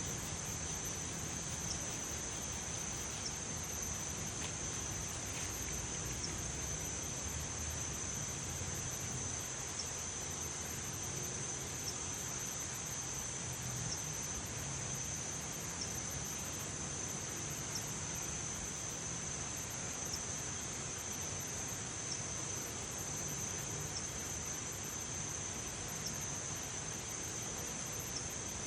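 Insect chorus: a steady, unbroken high-pitched trill, typical of crickets, over a low background hum of outdoor noise.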